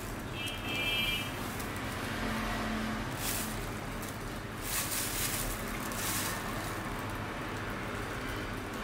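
Flat pedicure blade scraping dry callus from a heel: a few short hissing scrapes, about three over several seconds, over a steady background hum.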